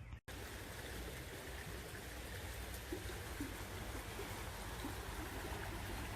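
Steady rushing of a stream's running water, starting just after a brief cut-out of the sound.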